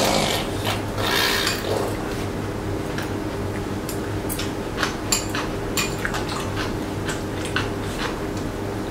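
Table eating: metal chopsticks and spoons clicking against bowls and plates in scattered short clinks, with softer chewing and mouth sounds in the first couple of seconds, over a steady low hum.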